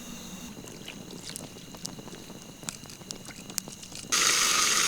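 Crickets and other night insects chirring steadily, with scattered small clicks. About four seconds in, a loud, even hiss starts abruptly and runs to the end.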